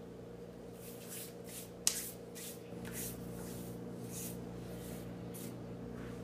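Hands rubbed and brushed together in a series of short dry swishes, dusting off toast crumbs, with a sharp click about two seconds in. A steady low hum runs underneath.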